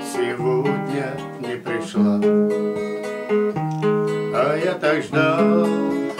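Instrumental music, a song's accompaniment, led by strummed acoustic guitar chords with sustained notes under them.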